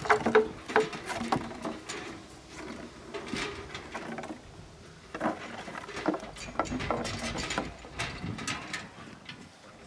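Afghan hound puppies play-wrestling on a concrete floor: scrabbling claws, scuffs and sharp clicks and knocks coming in bouts, with a quieter stretch about four to five seconds in.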